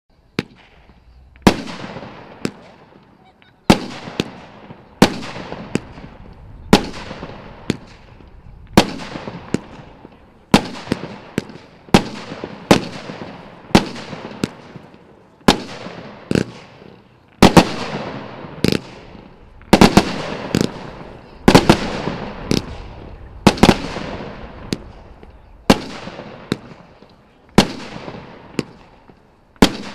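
Royal Fireworks Swirling Daisy firework cake firing shot after shot, about one a second and sometimes two in quick succession. Each shot is a sharp bang followed by a hissing trail that fades as the stars burn out.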